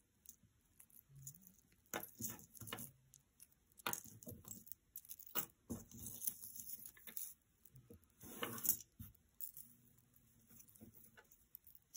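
Costume jewelry being handled and sorted by hand: scattered small clicks and clinks of metal pieces knocking together, with short scratchy rustles.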